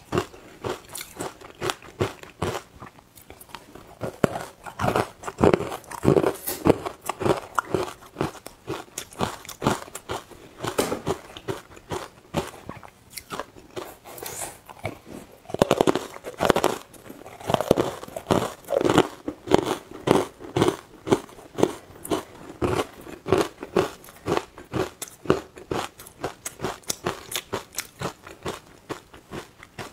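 Close-miked biting and chewing of carbonated ice cubes coated in matcha powder: crisp, irregular crunches in repeated bouts as the ice is bitten off and chewed.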